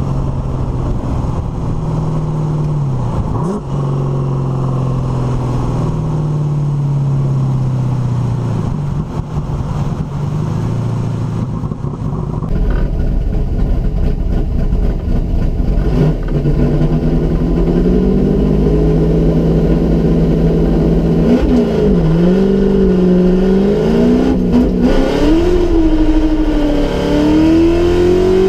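Holden Torana's 355 cubic-inch V8 running at fairly steady revs, then, louder from inside the cabin, accelerating hard with the revs climbing and dropping back through several gear changes.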